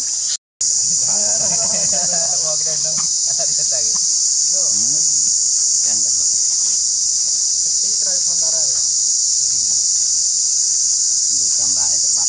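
Loud steady high-pitched drone of an insect chorus, with faint pitched calls rising and falling underneath at times. The sound cuts out for a moment about half a second in.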